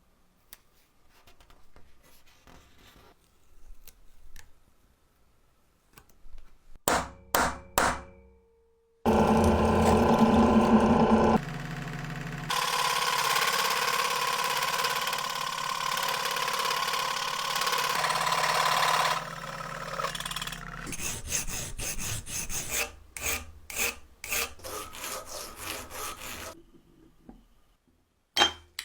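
Abrasive work on the game's parts: a few sharp knocks, then about ten seconds of steady grinding or sanding noise that changes level abruptly a couple of times. It ends in quick back-and-forth rubbing or filing strokes.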